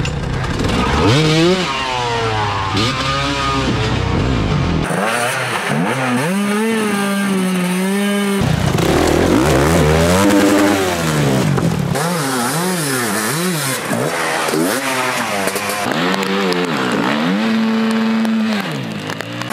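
Dirt bike engines revving hard, their pitch rising and falling over and over, about once a second in places, as the riders fight for grip. The sound changes abruptly several times as one bike's clip gives way to the next.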